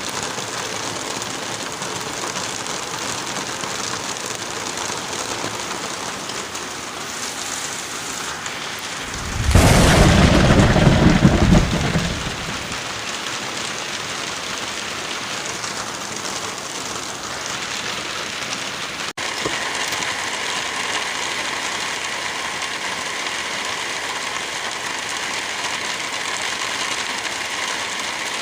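Steady rain with wind blowing through trees, an even hiss. Near the middle a loud, deep rumble swells up for about two and a half seconds, and later the sound cuts out for an instant before carrying on.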